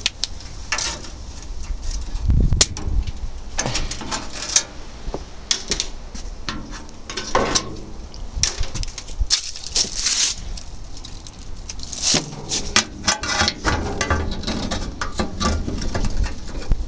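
Irregular clicks, rustling and occasional knocks from hand work on a stationary engine's sheet-metal casing as a side panel is worked free.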